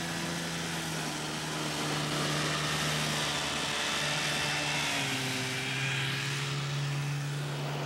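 Boat's outboard motor running steadily under way, its drone shifting slightly in pitch a couple of times, over a steady hiss of wind and water.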